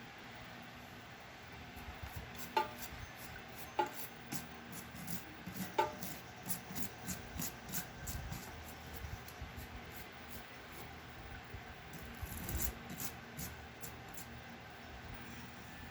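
Hand work on a loudspeaker: rubbing and scraping, with three sharp clicks in the first six seconds and then a run of lighter ticks and scrapes.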